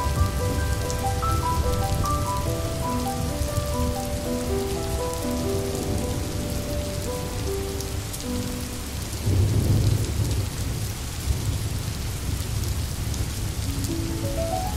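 Cozy rain-ambience background track: steady rain with a low rumble of thunder about nine seconds in, under slow melodic notes that stop a little past halfway and come back near the end.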